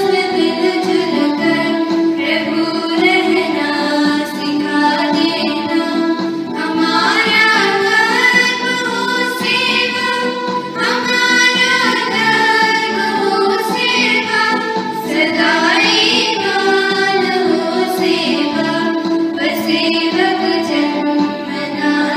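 Schoolchildren singing the school prayer together as a group.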